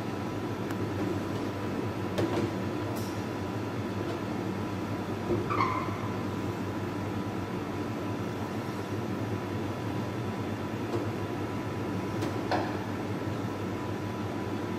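Steady workshop hum with a faint constant tone, broken by a few brief high squeaky clicks, about four spread through.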